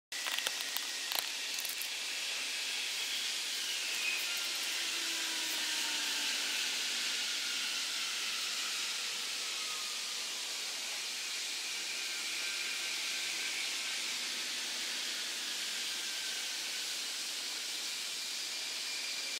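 Burning PVC faux-leather in a small fire, hissing steadily, with a few sharp crackles in the first second or two. Faint whistling tones slide down in pitch now and then.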